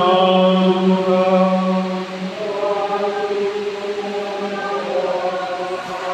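Slow devotional chant: a voice singing long held notes over a sustained low tone.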